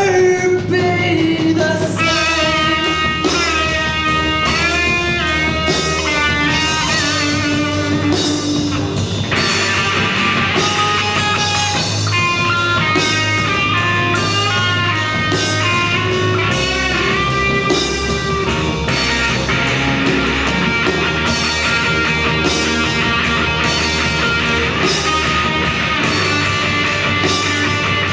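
A rock band playing an instrumental passage: a lead electric guitar plays bent, sliding notes over bass guitar and a steady drum beat.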